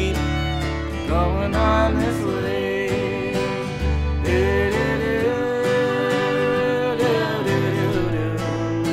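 Instrumental passage of an acoustic country-folk song: violin playing the melody, sliding between notes and then holding long notes, over strummed acoustic guitar and bass.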